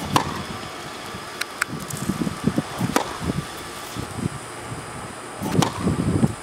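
Tennis racket hitting the ball on a serve just after the start, then more ringing ball strikes about three seconds in and near the end. Footsteps scuff on the hard court between the strikes.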